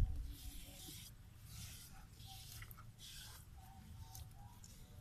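Hands smoothing and patting wet mud, four soft, wet, scraping strokes in the first few seconds, over a low rumble of wind on the microphone.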